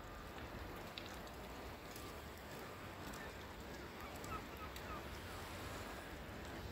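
Faint riverside outdoor ambience: a steady, even hiss of open air and water, with a few faint high chirps about four seconds in.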